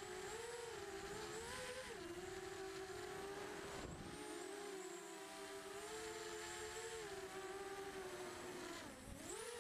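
A small motor's steady whine, its pitch wavering up and down. It drops sharply and surges back up twice, about four seconds in and again near the end.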